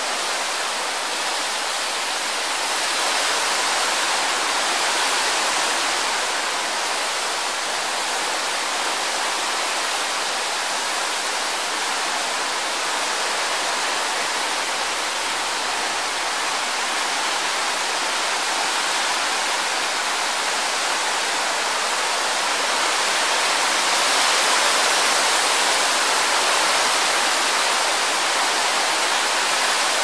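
Wind sound effect: a steady rushing hiss with little low rumble, swelling gently a few seconds in and again in the last quarter.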